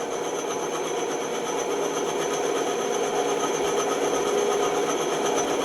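Bandsaw running steadily, its blade cutting a piece of wood, with a constant hum.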